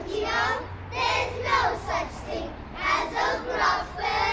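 A group of children reciting a poem together in unison, in a sing-song chant of short phrases.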